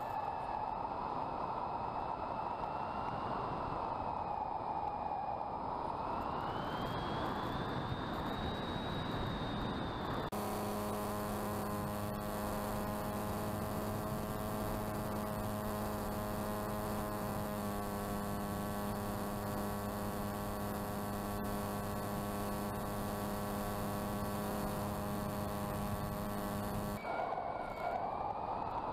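Onboard sound of small electric RC planes in flight: motor and propeller whine over wind rush, the whine sliding down and back up in pitch. About ten seconds in it changes abruptly to a steady, even motor hum, which holds until near the end, when the wind-rushed whine returns.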